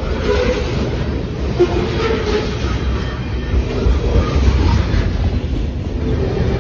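Freight train rolling past close by: a steady rumble of steel wheels on rail and the clatter of the cars going by, with short squeaks now and then.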